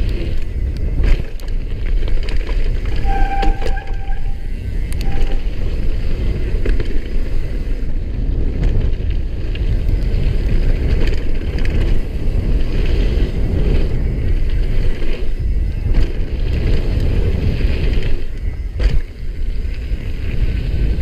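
Downhill mountain bike rolling fast down a loose gravel trail: a steady rough rumble of tyres on gravel mixed with wind, broken by several sharp knocks and rattles from the bike over bumps.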